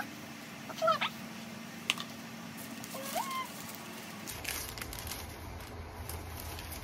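Quiet handling of a small cardboard gift box as its ribbon comes off and its lid is pulled open, with a few short squeaky glides and a sharp click. Paper wrapping is then handled near the end.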